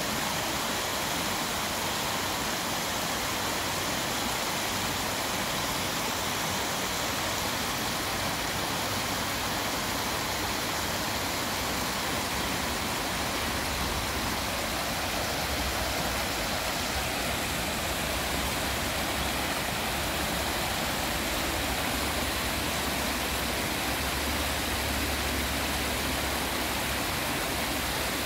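Shallow stream rushing over a rocky bed and around stepping stones: a steady, even wash of running water. A low rumble comes and goes underneath in the second half.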